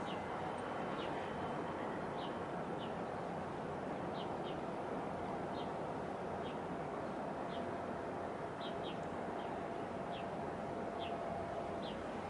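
Steady outdoor wash of wind and distant water and engine noise, with a small bird giving short, high, falling chirps roughly once a second.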